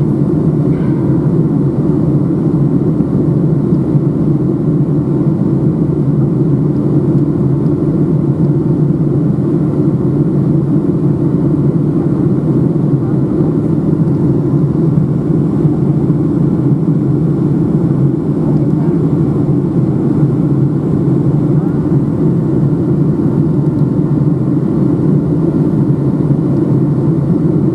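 Steady cabin noise inside a Boeing 757-200 on descent: the even rumble of engines and airflow over the fuselage, heard from a window seat over the wing.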